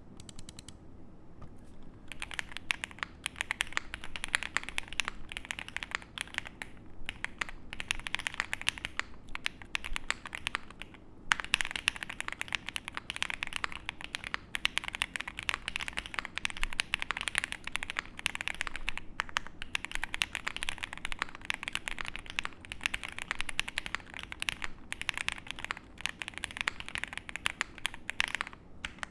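Continuous fast typing on a Mr. Suit mechanical keyboard with stock, unmodified Tangie switches: a dense run of key clacks, sparse for the first couple of seconds, with a brief lull and one sharper stroke a little over a third of the way through.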